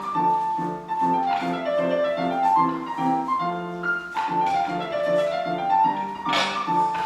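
Instrumental music with piano: a repeating melodic line over a steady, evenly pulsed accompaniment.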